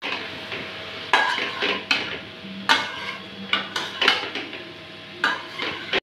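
Wooden spatula stirring potatoes and chicken in a metal kadai, scraping and knocking against the pan in about ten irregular strokes, over a steady frying hiss.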